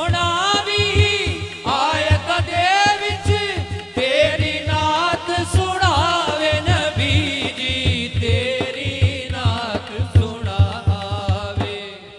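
A male naat reciter singing a devotional naat through a PA microphone, with a wavering, ornamented melody over a steady low drum beat. The sound fades down near the end.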